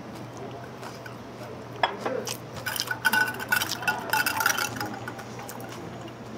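A straw stirring a drink in a tall glass: a quick run of clinks and rattles against the glass with a faint ringing, from about two and a half to nearly five seconds in, after a single click.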